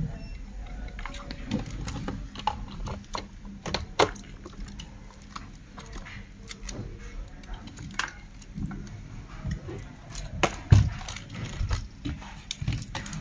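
Irregular sharp plastic clicks, taps and rattles of a robot vacuum's casing and bumper being handled and pressed together, with a few dull knocks, the loudest about eleven seconds in.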